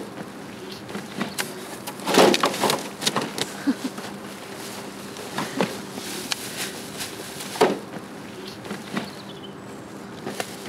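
Rubbish being picked through and gathered: black plastic bin bags rustling and bits of debris clicking and knocking, in short irregular bursts over a steady low hum.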